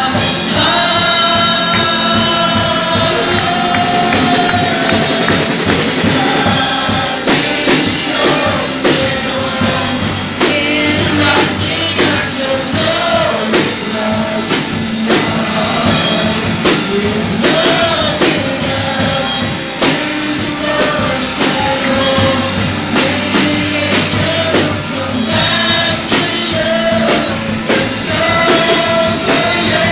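Live worship band playing a rock song: singers on microphones over electric guitars and a drum kit, with drum hits throughout.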